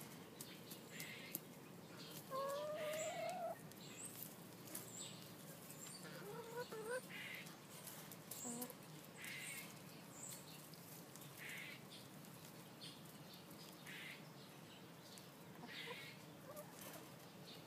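Backyard hens calling softly while they feed, with a drawn-out rising call about two and a half seconds in and another around seven seconds. Short scratchy sounds of pecking in the straw come in between.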